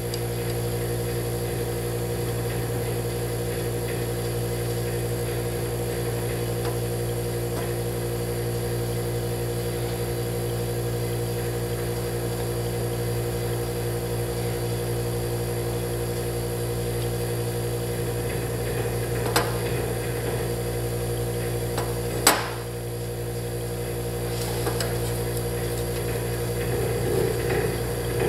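Steady electrical hum with many evenly spaced tones, like mains hum. Two sharp clicks come about 19 and 22 seconds in, with light handling noise near the end.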